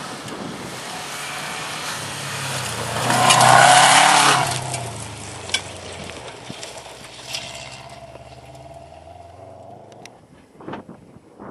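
Rally car passing at speed on a gravel stage. The engine note climbs to a peak with a rush of gravel and tyre noise about three to four seconds in, then fades as the car drives away. Two sharp cracks follow a few seconds after it passes.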